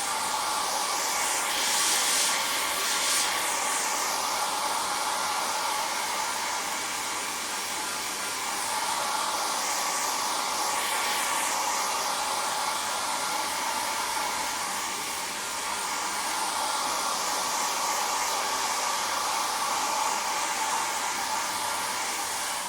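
Hair dryer running: a steady rush of blown air over a motor hum, swelling now and then.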